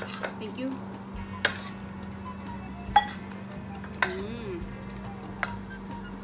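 Cutlery clinking against plates while eating, four sharp clinks spread a second or so apart, over a steady low hum.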